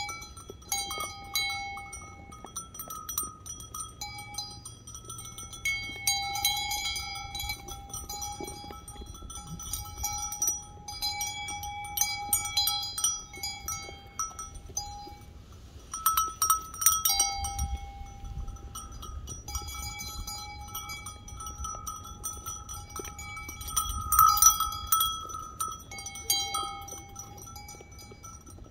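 A small bell on a sheep's collar ringing again and again as the sheep move their heads while eating, each ring fading before the next, with light crunching of sheep chewing whole corn.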